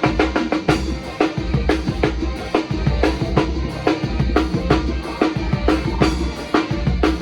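A Sonor acoustic drum kit played in a busy, steady groove, with bass drum, snare and Orion cymbals struck in quick succession.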